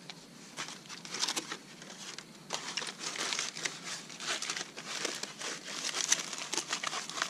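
Aluminium foil crinkling and crackling irregularly as it is folded back by hand around a baked apple, rewrapping it to go back in the fire for more cooking.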